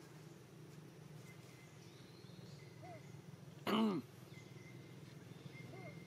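Baby monkey giving one short, loud cry a little past halfway, falling in pitch at the end. Two faint short chirps come before and after it.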